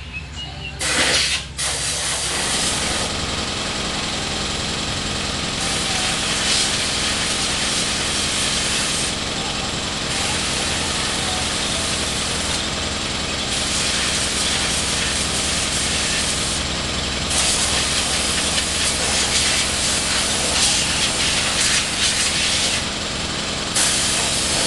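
Compressed air hissing from a hose nozzle as packed dirt is blown off a riding mower. The blast starts about a second in and then surges and eases several times as the nozzle is worked.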